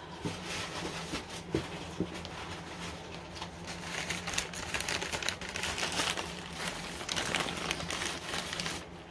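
Newspaper crinkling and rustling as a wrapped figurine is handled and unwrapped, with a few light knocks in the first couple of seconds. The crinkling gets busier about midway.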